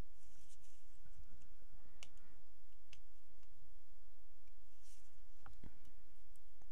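Scattered faint clicks and brief light rustles of hands working at a small plastic resin bottle and its foil seal, over a steady low hum.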